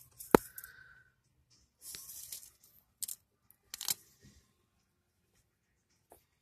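Handling noise from a hand-held camera being moved about: a sharp click just after the start, a short rustle about two seconds in, then two more clicks around three and four seconds.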